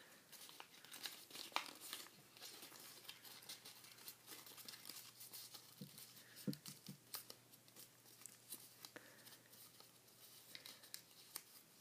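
Paper rustling and crinkling softly as a sheet is folded and creased by hand, with scattered faint crackles.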